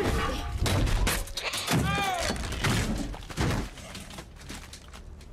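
A film-soundtrack din of crashing, thudding and shattering impacts over a heavy low rumble as mud and debris blast through a drill-floor control room. A man's cry rises and falls about two seconds in, and the crashing dies away after about three and a half seconds, leaving a low rumble.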